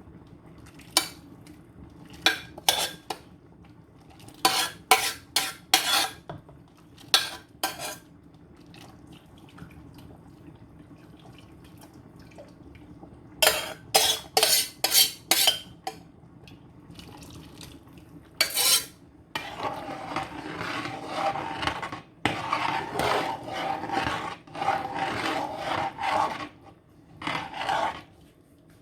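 A utensil stirring soup in a cooking pot, knocking and scraping against the pot: short clanks in clusters, then about eight seconds of continuous scraping near the end.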